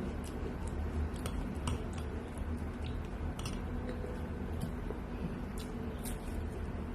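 Scattered light clicks and ticks, irregular and a few per second at most, over a steady low hum.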